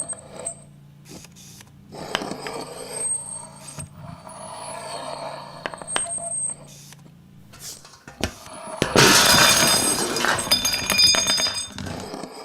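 Layered foley effects for a robot: a low mechanical hum with sharp clicks and small clinks, then, about nine seconds in, a loud metallic clatter with many ringing tones that lasts about three seconds.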